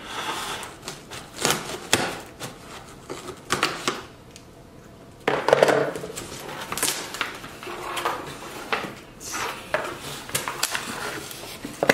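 A cardboard shipping box being opened by hand: scissors snipping and slicing through the packing tape, then the flaps pulled open and the cardboard handled, a run of clicks, knocks, scrapes and rustles. The loudest scraping comes about five seconds in.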